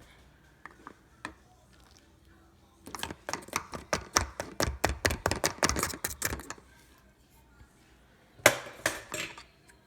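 Baking soda being tapped and shaken into a funnel: a quick run of clinks and taps, several a second, for about three and a half seconds, then one louder knock near the end.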